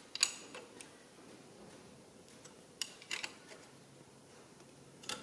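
Ring spanner clicking against the acorn nuts as they are nipped up on a CAV injection pump's top cover: a few light, sharp clicks at irregular intervals.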